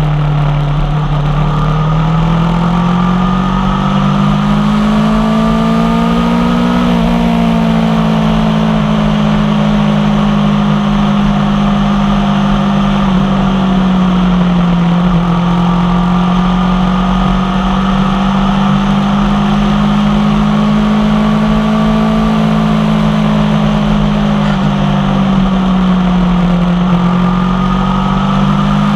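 2016 Aprilia Tuono 1100 Factory's V4 engine through an unbaffled M4 carbon exhaust, running steadily while under way. The engine note climbs gently over the first several seconds, dips, and rises and falls slowly again, as the throttle is eased on and off.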